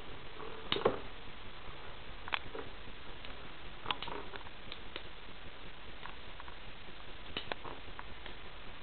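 Two metal Beyblade tops spinning in a plastic stadium: a steady faint hiss of the spin broken by scattered sharp clicks as the tops strike. The loudest knock comes about a second in, and a quick double click comes near the end.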